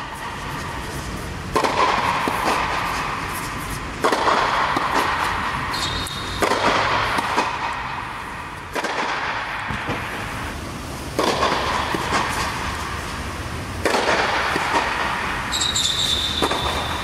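Tennis ball struck by a racquet seven times, about every two and a half seconds, each hit ringing on in the echo of the air-supported dome, over a steady low hum. A high squeak sounds near the end.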